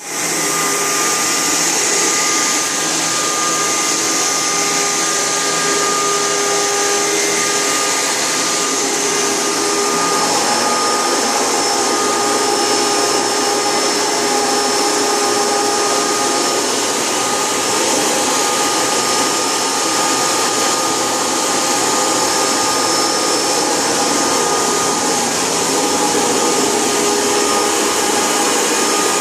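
Vacuum cleaner running steadily, a constant motor whine and rush of air.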